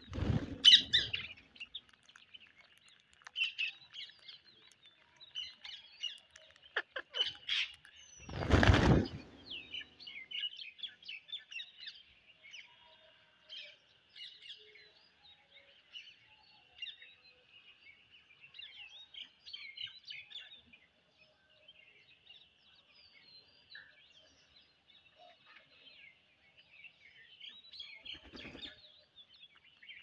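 A flock of rose-ringed parakeets giving many short, high chirps and chatter throughout. Loud close rustling bursts come right at the start and about nine seconds in, with a softer one near the end.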